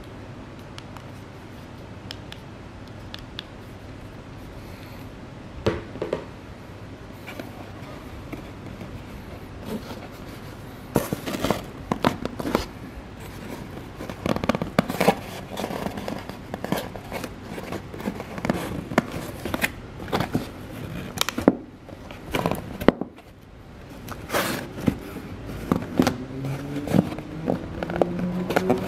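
Hands handling headphones and their box packaging. At first there are only a few soft clicks over a faint hiss; from about a third of the way in come irregular crackles, scrapes and clicks of card and tape being handled and pulled.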